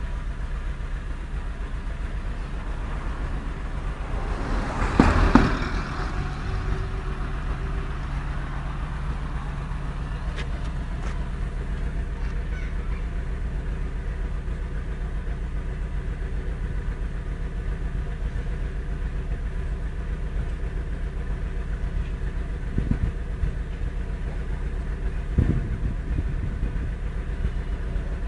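Car engine idling steadily, with a brief louder swell about five seconds in.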